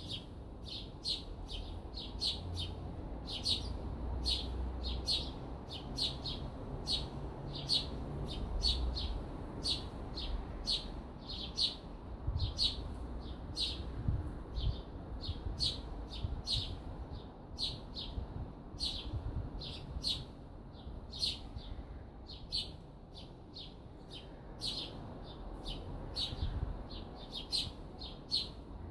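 A small songbird chirping over and over, short sharp chirps at about two a second, over a faint low rumble.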